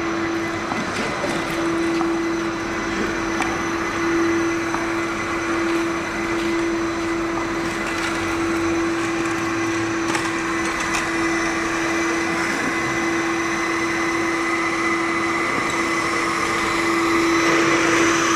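Stainless-steel industrial drum vacuum cleaner running steadily: a constant motor hum over rushing air, with a few faint ticks.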